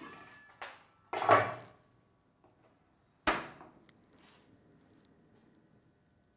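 Clanks of a metal wok lid being handled, the loudest about a second in, then one sharp click of a portable gas stove's igniter about three seconds in, followed by a faint hiss.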